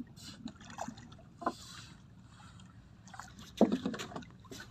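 Fishing boat at sea: water sloshing against the hull over a steady low rumble, with scattered knocks on the deck and a sharper clatter about three and a half seconds in.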